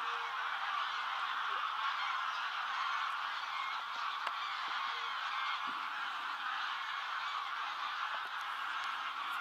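A flock of wild geese calling in flight: a dense, unbroken chorus of many overlapping honks.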